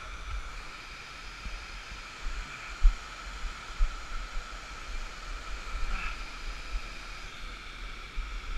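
Shallow creek water rushing steadily over smooth granite slabs, with a few dull low thumps, the loudest about three seconds in.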